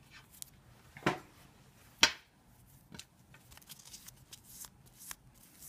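Quiet handling sounds of hands and a cloth on a filed acrylic nail: a few short taps and rustles, the sharpest about two seconds in, with lighter rubbing as the cloth wipes the nail.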